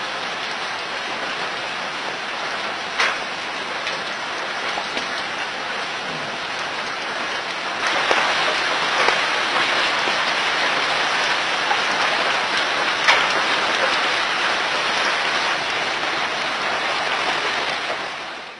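A steady, loud hiss, like heavy rain, that grows louder about eight seconds in, with a few sharp cracks through it, the loudest about thirteen seconds in.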